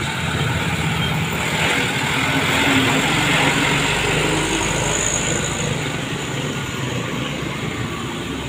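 Log-laden Mitsubishi Fuso light truck driving slowly past, its diesel engine running steadily under load with road noise from the rough surface.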